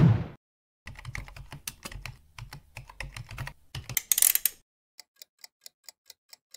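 Logo-intro sound effects: one loud hit, then a fast run of computer keyboard typing clicks, then light ticks evenly spaced at about four a second near the end.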